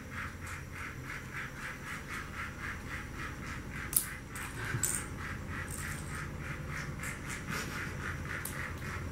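Battery-powered toy train running on its track, its motor and wheels clicking in a steady rhythm of about four beats a second, with a couple of sharper clicks about halfway through.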